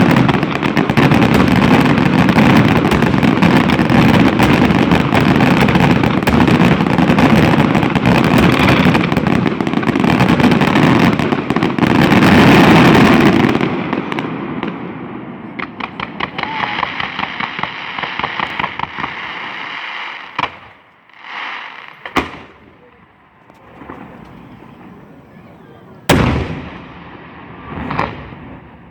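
Fireworks: a dense, continuous barrage of bangs and crackle for about the first thirteen seconds. Then comes a run of rapid, evenly spaced pops, and after it a few single loud bangs a couple of seconds apart near the end.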